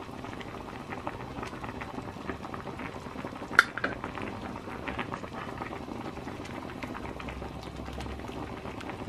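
Spaghetti, chopped vegetables and water bubbling as they come to a boil in a non-stick frying pan, while a wooden spatula stirs in a spoonful of tomato paste. One sharp tick stands out about three and a half seconds in.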